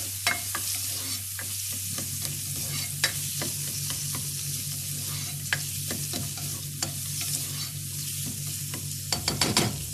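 Chopped onion sizzling in hot oil as it is sautéed, with a spatula stirring it round the pot and tapping against the pot now and then. There is a quick run of taps near the end.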